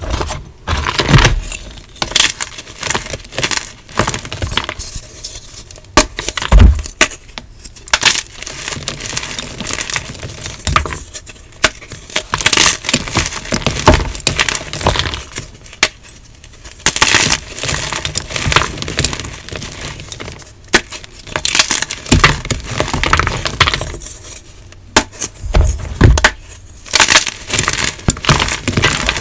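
Hard, dyed gym chalk being crushed and crumbled, in repeated runs of sharp crunching and cracking with short pauses between them.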